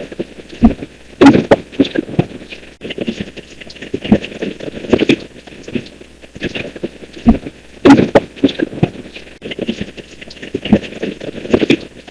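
Choppy, crackling white-noise static from spirit-box-style software, full of irregular clicks and pulses that come and go.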